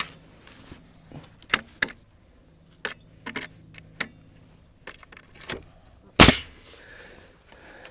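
Scattered sharp clicks and knocks of boards and tools being handled, about seven in all, with one much louder bang a little after six seconds in.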